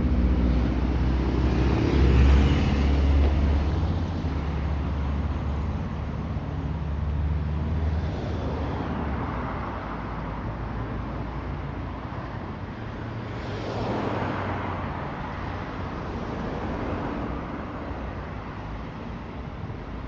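Street traffic: a low engine rumble from cars at an intersection, loudest about two seconds in, then cars passing by on the avenue, one swelling and fading about two-thirds of the way through.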